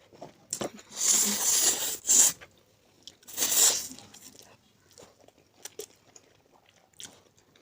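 Spicy instant noodles being eaten: two long slurps, about a second in and again around three and a half seconds, with chewing and small wet mouth clicks between and after.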